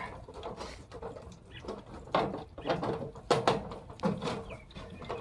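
Handling noises: rustling with a few sharp clicks and knocks, the loudest a little after two seconds and again around three and a half seconds in.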